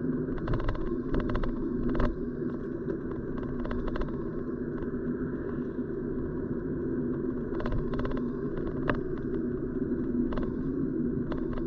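Car driving on a damp country road, heard from inside the cabin: a steady road and engine rumble, with scattered sharp ticks coming in irregular clusters.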